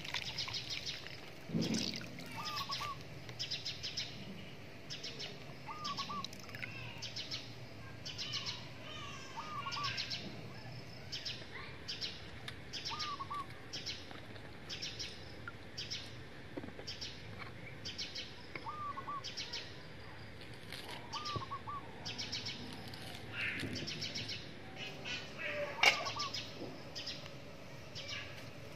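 Birds chirping: a high chirp repeated a little faster than once a second, and a short double call recurring every few seconds. A sharp click near the end is the loudest sound.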